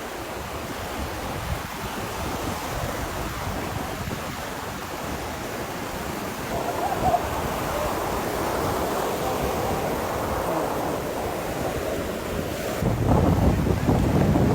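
Ocean surf breaking on a beach, a steady wash that swells and fades, with wind buffeting the microphone, heaviest near the end.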